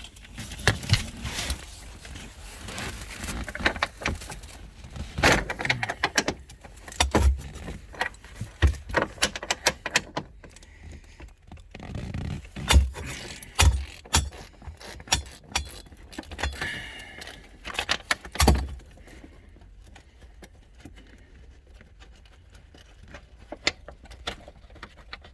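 Metal clinking and jangling with irregular knocks and scrapes from a seatbelt latch and a hand wrench being worked in a car's rear seat, busiest for the first two-thirds and then sparse.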